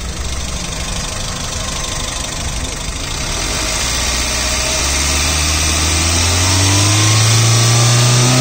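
Suzuki Swift VXi petrol engine running, heard from over the open engine bay: it idles steadily, then its revs climb slowly from about halfway through.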